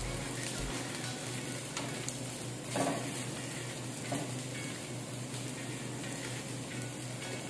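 Diced hot dogs and chicken ham sizzling in a stainless steel frying pan while a spatula stirs and scrapes them. Several louder scrapes of the spatula on the pan stand out, the strongest about three seconds in.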